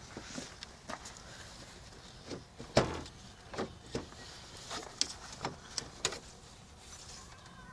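Scattered clicks and knocks of hand tools and parts during work on a Ford Escort's alternator, about seven short strikes at uneven intervals, the loudest about three seconds in.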